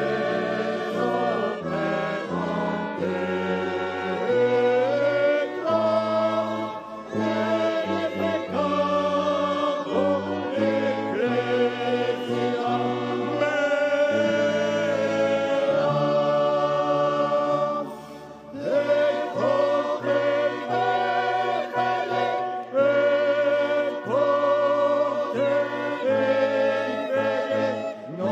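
Choir singing liturgical music in a large cathedral, over sustained low chords that change in steps; the sound drops briefly about 18 seconds in before the singing resumes.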